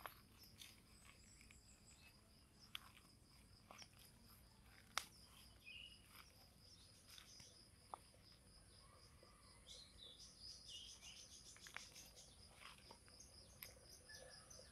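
Faint garden ambience: a steady high insect trill with scattered bird chirps, more of them in the second half, and a few sharp clicks, the loudest about five seconds in.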